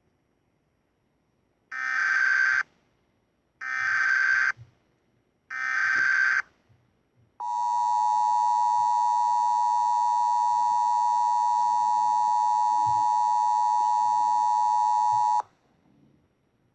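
Emergency Alert System tones: three short data bursts of the SAME header about two seconds apart, then the steady dual-tone EAS attention signal held for about eight seconds before it cuts off sharply. The sequence announces an emergency alert message, here a civil danger warning.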